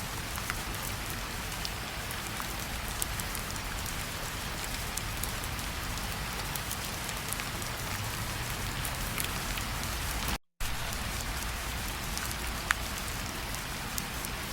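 Steady rain falling, with single drops ticking now and then over the hiss. The sound cuts out completely for a split second about ten and a half seconds in.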